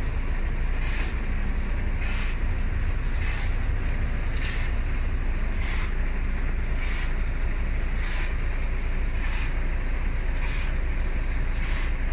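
Volvo B9R bus's diesel engine idling with a steady low rumble, with short hisses of air repeating evenly about every second and a bit.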